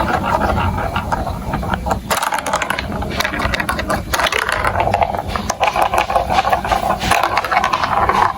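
Marbles rattling and clicking continuously through a plastic building-block marble run.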